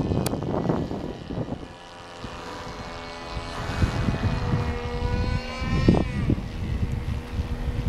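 Engine and propeller of a radio-controlled T-28 Trojan model warbird droning in flight overhead. Its pitch rises and then glides down about six seconds in, over a low rumble that is loudest at the start.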